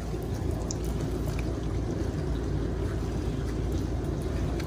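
Steady low rumbling noise, even throughout, with no distinct events.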